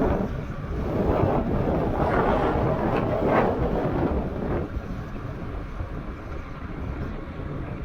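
Wind buffeting the microphone of a fast-moving e-bike in strong gusts, a low rumble throughout that swells louder between about one and four and a half seconds in.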